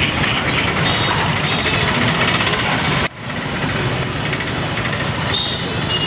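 Street traffic noise with a motor engine running steadily close by; the sound breaks off sharply about three seconds in and picks up again.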